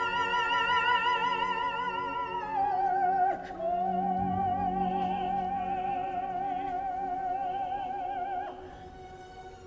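Operatic soprano and tenor singing a long, high held note with wide vibrato, with the orchestra soft beneath them. About three seconds in the voices glide down to a lower note and hold it. The singing stops near the end, leaving only quiet sustained strings.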